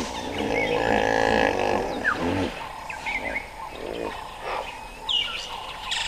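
A large wild animal's long, low, wavering call that ends about two and a half seconds in, over bushveld background with birds giving short chirps and whistles.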